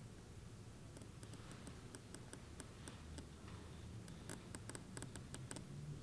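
Faint, irregular light clicks and taps from hands working test probes and small parts against a circuit board, over a steady low hum. The clicks begin about a second in and come thickest near the end.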